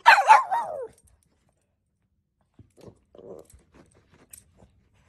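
A dog barks once right at the start, a high call under a second long that slides down in pitch. Faint scuffling and a few light clicks follow a couple of seconds later as the dog moves.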